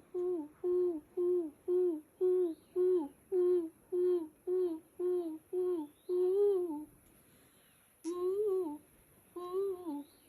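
A woman chanting in 'light language', wordless improvised singing: a quick run of short repeated syllables, about two a second, each rising and then falling in pitch. After a pause about seven seconds in, she sings a couple of longer, slower syllables.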